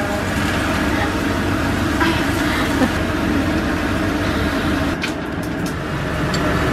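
Stir-frying in a stainless steel wok of cabbage, tofu puffs, oysters and mushrooms: a steady low rumbling hiss of frying under a running kitchen extractor. A few sharp clicks come from the spatula against the wok about five seconds in.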